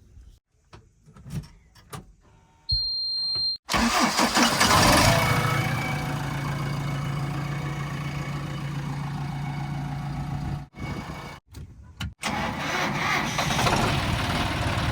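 A short high steady beep, then a diesel engine of a tractor or earthmover running loud with a steady low hum, starting about four seconds in. The engine sound cuts off abruptly twice near two-thirds of the way through, then comes back.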